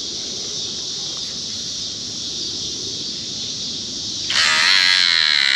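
Steady dusk chorus of insects, with a louder wavering whirr that starts about four seconds in and lasts almost two seconds.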